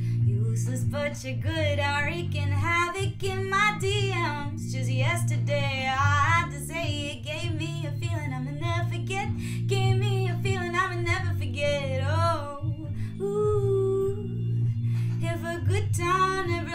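A woman singing a melody with a wavering, vibrato-like pitch while accompanying herself on a Stratocaster-style electric guitar played clean, with steady held chords under the voice.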